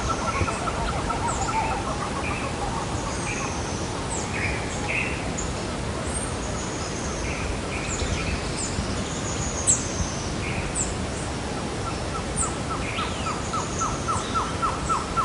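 Sea surf washing steadily under many birds chirping and calling. Near the end one bird gives a fast series of repeated falling notes, about five a second.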